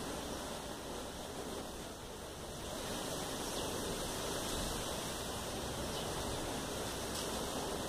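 Steady rushing outdoor background noise with a few faint ticks.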